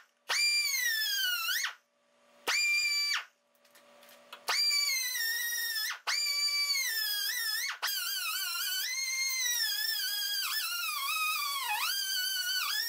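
Pneumatic cutoff tool with a small abrasive wheel cutting slots into half-inch steel bar stock, run in about five bursts of high whine that sag and waver in pitch as the wheel bites into the steel. The last burst runs for about five seconds.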